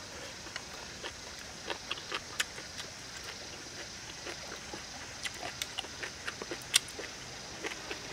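A person chewing and smacking food close to the microphone: irregular sharp clicks and smacks, one markedly louder about two-thirds of the way through, over a steady faint high hiss.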